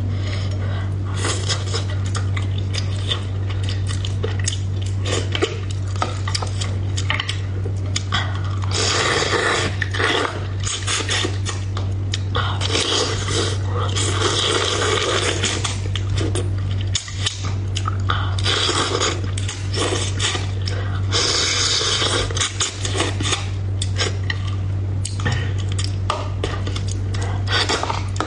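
Wooden chopsticks clicking and scraping against a bowl while picking apart a braised fish, with several short bursts of wet eating and slurping sounds. A steady low hum runs underneath.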